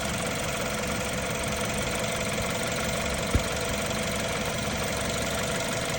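BMW N20 2.0-litre turbocharged four-cylinder engine idling hot, with a slight clicking and metallic noise that the owner puts down to a worn timing chain due for replacement. A single short low thump about three and a half seconds in.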